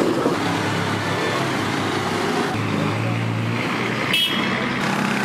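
Steady road-traffic noise: vehicle engines and road hum, with a short high-pitched tone about four seconds in.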